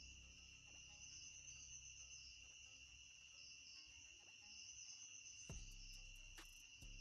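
Faint steady insect trilling, like crickets, with a high pulsing note over a lower steady one. A few sharp clicks come near the end.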